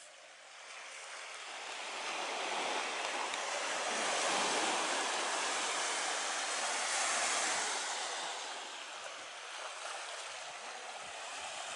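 Small sea waves washing onto a sandy, rocky shore: the surf swells over a few seconds, is loudest in the middle, then eases back.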